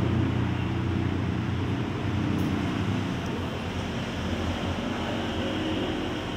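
A motor vehicle's engine running close by with a low hum, slowly fading away, over steady street noise.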